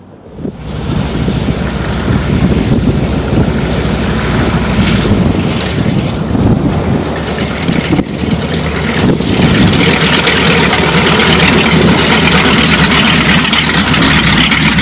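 Radial engine of a 1943 Howard monoplane running at taxi power with propeller noise as the plane rolls close by, a steady low rumble that grows louder from about nine seconds in.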